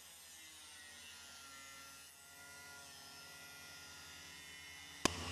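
Electric angle grinder with a cut-off disc cutting through sheet steel, its motor whine shifting slowly in pitch as the disc takes load. A sharp click near the end.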